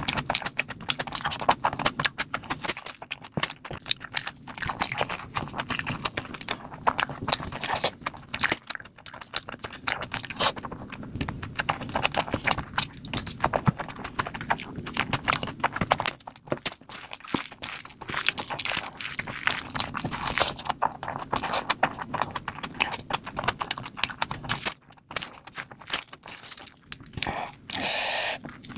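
Close-miked wet chewing and lip smacking of a mouthful of rice and mutton eaten by hand: a rapid, sticky stream of mouth clicks with brief pauses.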